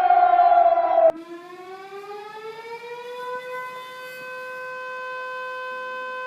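Civil defense siren sounds cut together: a loud siren tone, sliding slightly down in pitch, cuts off abruptly about a second in. A quieter siren then winds up in pitch over a couple of seconds and holds a steady tone.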